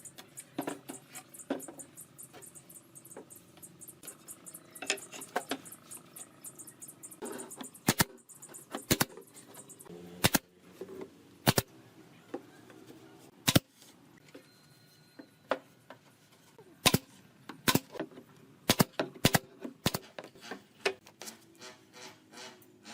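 Irregular sharp knocks and clicks from woodworking, about a dozen loud single strikes spread through the middle and later part, with a fast run of light ticking in the first few seconds.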